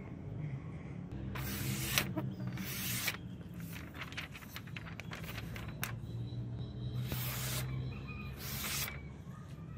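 Sharpened steel sword blade, forged from a leaf spring, slicing through a sheet of paper in an edge test: several short swishes of the paper being cut, with crackly paper rustling between them. Soft background music underneath.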